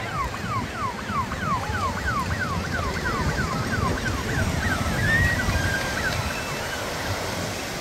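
Police vehicle siren wailing in a fast repeating falling sweep, about three to four a second, that fades out around halfway through. Under it runs a steady low rumble of surf.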